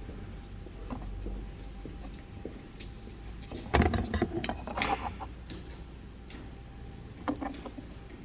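A short burst of metallic clinking and rattling about four seconds in, as metal engine parts are handled, with a few lighter clicks near the end.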